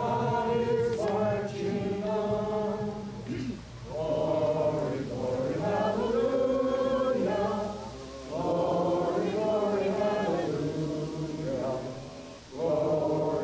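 A crowd of voices singing together in long held phrases, with short pauses for breath about every four seconds.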